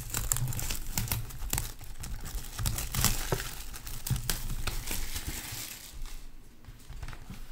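Plastic wrapping of trading card packs crinkling and rustling as the packs are handled and pulled from a tight box, with scattered small clicks and taps, easing off about six seconds in.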